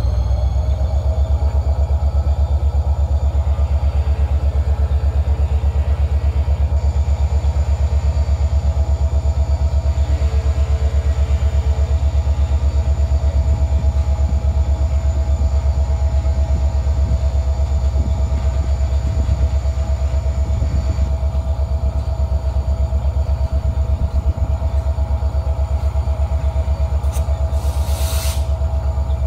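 Freight train of covered hopper cars: a steady low rumble with a fine rapid pulsing, under a steady whine that rises slightly at the start and then holds. A short hiss comes near the end.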